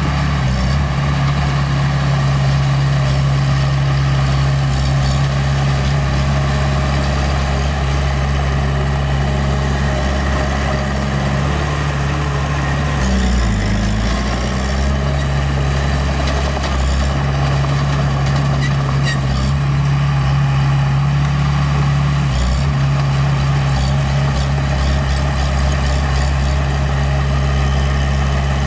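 Diesel engine of a small bulldozer running steadily, its pitch dipping briefly about halfway through and again later on as the load or throttle changes.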